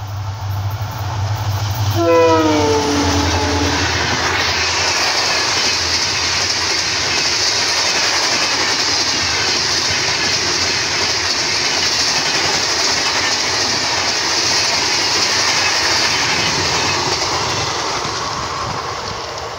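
EMD WDP4B diesel locomotive passing at speed: its two-stroke V16 engine hums as it approaches, and about two seconds in its horn sounds for about two seconds, dropping slightly in pitch as it goes by. Then the passenger coaches rush past with a steady noise of wheels on the rails, fading near the end as the train moves away.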